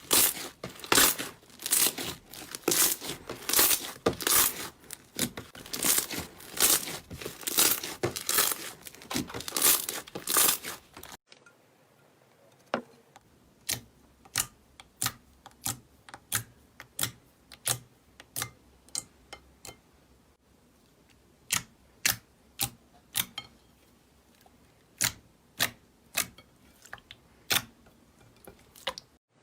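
Slime being squeezed and worked by hand, making rapid sharp clicking pops for about eleven seconds. After a sudden cut it gives single sharp pops, about one or two a second.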